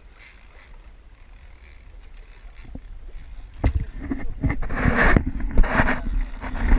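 Low rumble of wind and water around a fishing boat. From about halfway there are several sharp knocks and a few loud bursts of rushing, splashing noise.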